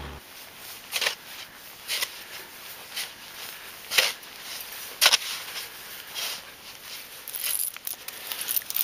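Tyre snow chains being handled by hand in snow: short scraping strokes about once a second, then a quicker jingle of steel chain links near the end.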